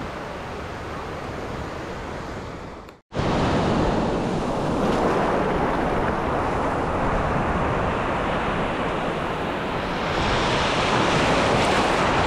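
Sea surf washing and breaking, with wind on the microphone. It cuts out briefly about three seconds in and comes back louder.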